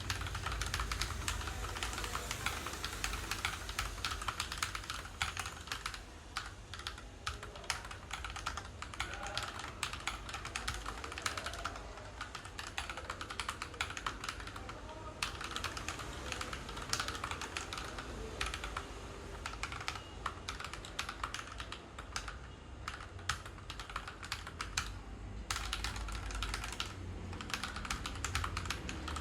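Fast, continuous typing on an Akko 3098 mechanical keyboard with Akko Pink V2 linear switches and thick PBT double-shot Cherry-profile keycaps, the keystrokes clacking in a dense stream with a brief pause near the end.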